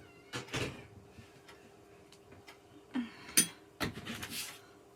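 Scattered clicks, knocks and light rubbing of gaming-chair parts being handled and fitted during assembly, with a few sharper knocks about half a second in and around three and a half seconds in.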